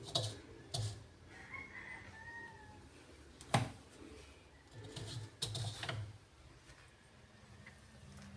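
Faint clicks and knocks of hands handling a white PVC sink P-trap, with one sharp tap about three and a half seconds in and a cluster of knocks around five to six seconds. A short chirping bird call about two seconds in.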